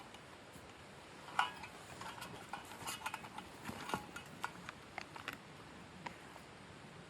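Irregular light clinks and knocks of small hard objects being handled, a busy run of them from about a second and a half in until about six seconds.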